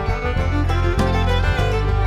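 Background instrumental music in a country or bluegrass style, with fiddle and guitar.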